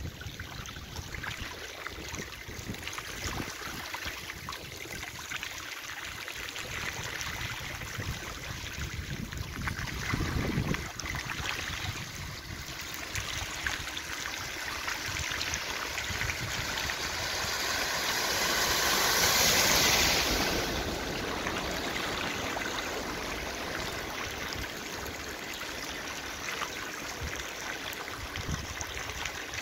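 Floodwater running over a street, a steady rush of water. About two-thirds of the way through, a car drives through the flooded road close by. Its tyres hiss and splash in a swell that builds, peaks and quickly fades.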